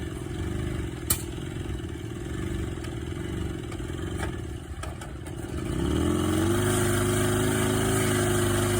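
Piaggio Bravo moped's two-stroke single-cylinder engine, running on a replacement carburetor, first runs rough and uneven with a few sharp clicks. About six seconds in it picks up, rises briefly in pitch and settles into a steady, louder run.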